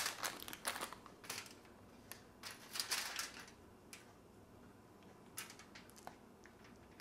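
Faint rustling of a plastic bag of chocolate chips and light clicks as the chips are handled and set onto a banana on aluminium foil. The sounds come as a scattered run, mostly in the first half, then a few isolated ticks.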